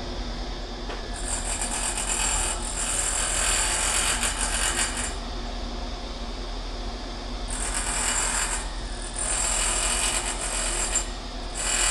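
Cicadas calling in about five surging waves of shrill buzzing, each swelling for a second or two and breaking off, over a steady low rumble.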